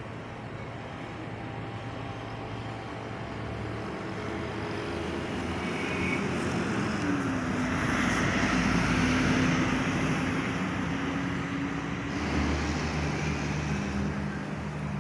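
Intercity coach's diesel engine running as a bus moves past close by. The sound grows louder to about the middle with a steady engine tone, then eases off. A different low engine note comes in near the end.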